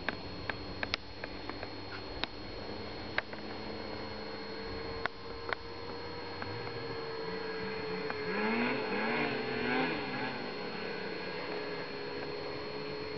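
Distant snowmobile engine droning steadily, its revs rising and falling several times about eight seconds in, with a few faint clicks earlier on.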